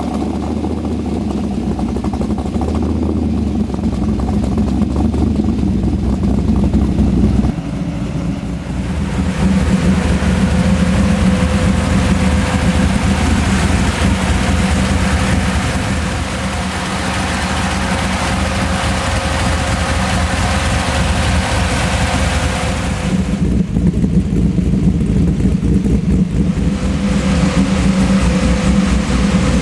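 Custom Chevrolet Silverado 427 SS street truck's 7.0-litre V8 running loud and continuous. Its note changes about seven seconds in to a fuller, brighter engine sound that carries on, easing briefly around twenty-three seconds in before coming back.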